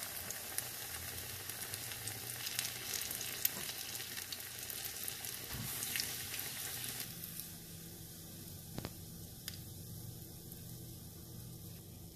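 A battered bread slice deep-frying in hot oil in a nonstick pan: a steady crackling sizzle. It is busiest for the first seven seconds or so, then settles to a quieter sizzle, with a couple of light clicks later on.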